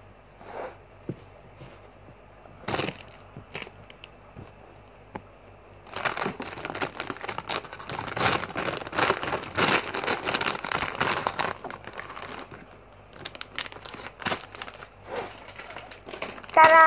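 Plastic packaging of a squishy toy crinkling as it is handled: scattered light rustles and clicks at first, then a dense stretch of crinkling about six seconds in that lasts around six seconds before thinning out again.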